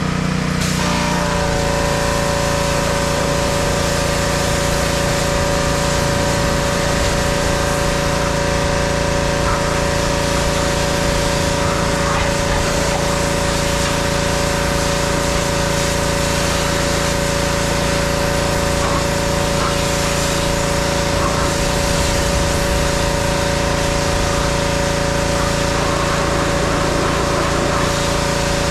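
Engine-driven pressure washer running steadily, its engine note shifting about a second in and then holding, with the hiss of the high-pressure water jet spraying against a semi-truck cab.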